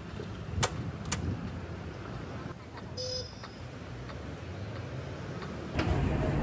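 Street ambience with a low, steady rumble of road traffic. Two sharp clicks come about half a second apart within the first second or so, and a brief tone sounds around the middle. The traffic noise gets louder near the end.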